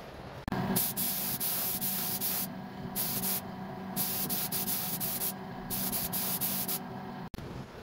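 Paint spray gun hissing in four bursts of spraying with short pauses between, over a steady machine hum.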